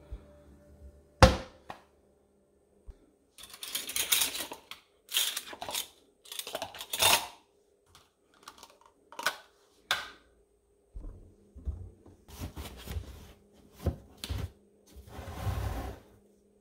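Household items being handled in a kitchen: an irregular run of clattering knocks, scrapes and rustles from plastic containers and kitchen things being moved, with one sharp knock about a second in and duller thuds near the end.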